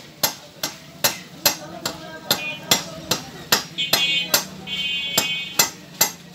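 Wooden mallet knocking a rohu fish down onto a fixed upright cutting blade, chopping it into pieces with sharp, regular blows about two and a half a second.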